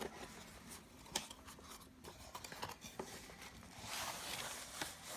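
Faint handling of packaged accessories: a few small clicks and taps, then plastic packaging rustling from about four seconds in.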